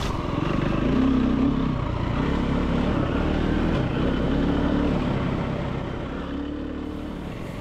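Husaberg FE350 dirt bike's single-cylinder four-stroke engine pulling under load, its revs rising and falling with the throttle.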